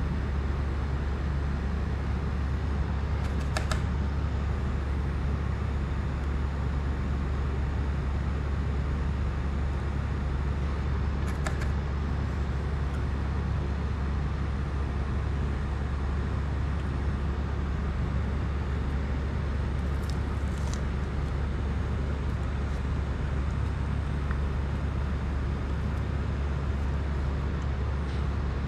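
Steady low hum with a hiss of background noise. A few faint, brief clicks are scattered through it.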